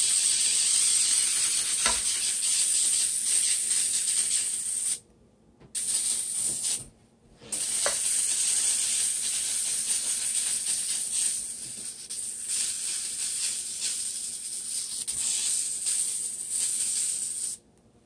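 Stir fry of cauliflower, tomatoes, sausage and freshly added eggs sizzling in a hot wok, a steady hiss. It cuts out abruptly twice for under a second, about five and seven seconds in.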